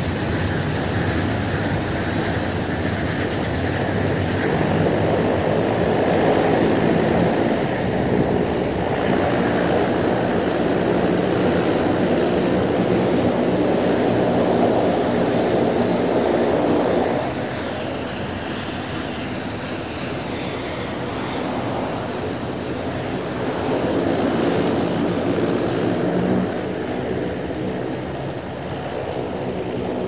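Engines of a Dash 7, a four-engined turboprop airliner, running with a steady propeller drone. The drone swells and drops in level, falling off noticeably a little past halfway.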